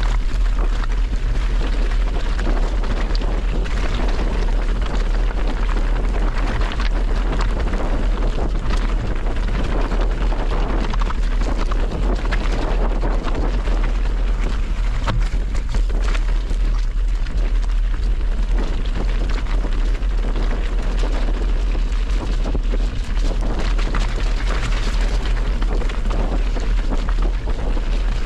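Heavy wind noise on the microphone: a continuous, loud low rumble with a rushing hiss over it.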